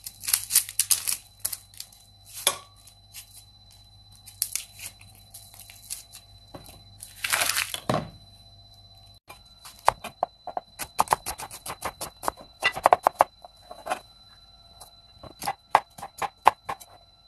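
A kitchen knife peeling papery vegetable skin: rasping tears and scrapes. After a break about nine seconds in, the knife cuts on a plastic cutting board as quick runs of sharp taps.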